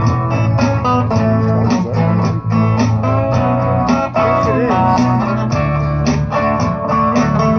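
Live band playing an instrumental passage: guitar over a low bass line and a steady drum beat, with no singing yet.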